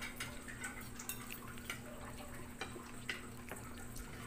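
Faint, irregular clicks and taps of a fork and spoon against a plate of fish and rice, over a low steady hum.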